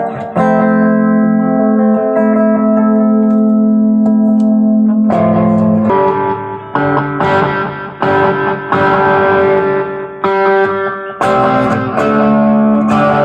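Electric guitar played through a Tubeman tube preamp pedal. One chord is held and rings for about five seconds, then a run of separately picked chords rings and fades one after another.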